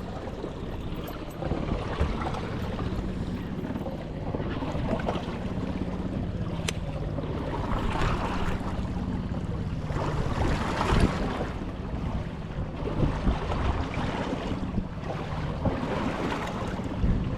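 Fishing boat's motor running with a steady low hum, under wind buffeting the microphone and water washing in repeated swells.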